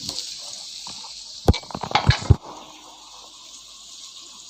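Chopped onions sizzling in hot oil in a kadai, with a spoon knocking and scraping against the pan several times in quick succession around the middle as they are stirred. The sizzle is a little quieter after the stirring.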